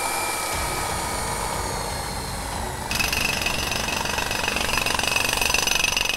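Rattling jackhammer-like drilling sound effect for a toy miner's drill. A high steady whine joins about three seconds in, and the sound gets louder there.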